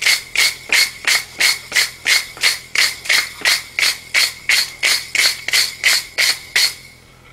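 Hand wire brush scrubbing scale off a red-hot forge-welded twisted bar on the anvil face: quick, even rasping strokes, about three a second, over a steady high ring. The strokes stop shortly before the end.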